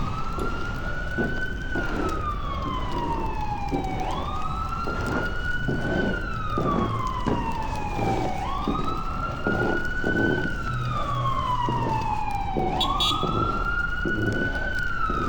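Emergency vehicle siren on the wail setting. Each cycle shoots quickly up in pitch, then slides slowly down, and it repeats about every four seconds, four times in all.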